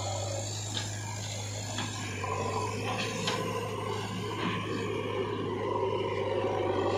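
Diesel engine of a JCB 3DX backhoe loader running steadily as it works, a constant low drone with a few sharp clicks from the machine and soil, getting slightly louder toward the end.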